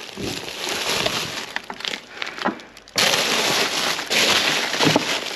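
Plastic food packaging rustling and crinkling as groceries are shifted about in a wheelie bin. About three seconds in, a louder, steady hiss cuts in abruptly.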